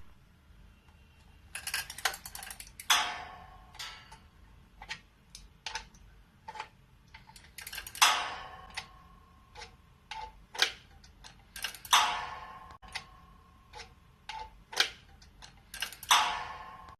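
A string of sharp clicks and knocks, with a louder strike about every four seconds that rings on briefly.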